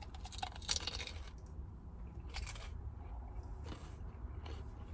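Biting into a crispy deep-fried cream cheese rangoon and chewing it: a dense run of crunching in the first second, then a few separate, fainter crunches.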